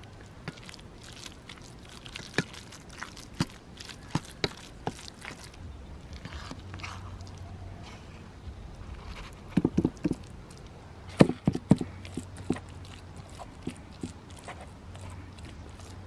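Perforated metal skimmer scraping and clinking against a stainless-steel colander as cooked rice is scooped out, a series of sharp knocks with louder clusters about ten and twelve seconds in.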